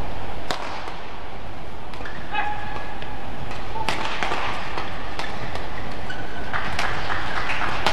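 Badminton doubles rally: rackets striking the shuttlecock in a handful of sharp cracks, coming quicker near the end, with short squeaks of court shoes and a steady murmur of arena crowd noise underneath.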